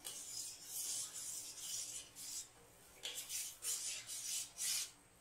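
Metal spoon scraping around the bottom of a stainless steel pot, stirring sugar into water as it dissolves for syrup. A run of rasping strokes, a short pause about two and a half seconds in, then several separate strokes.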